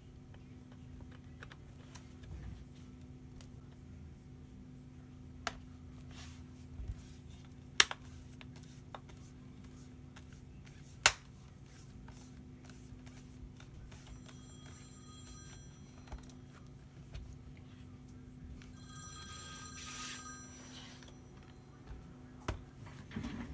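Sharp plastic clicks and snaps as a laptop's screen bezel is pressed into its clips around the lid, the two loudest about eight and eleven seconds in. From about halfway, a telephone rings in short bursts of steady electronic tones.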